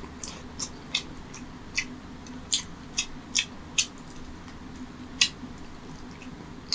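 Close-miked eating sounds: about ten sharp, wet smacks and clicks at irregular intervals as curry-soaked rice is mixed by hand and chewed.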